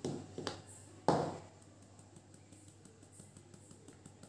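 Stainless mesh flour sieve tapped and shaken over a bowl while sifting flour: a few sharp taps in the first second or so, the loudest just after one second with a short ring, then faint, quick, light tapping.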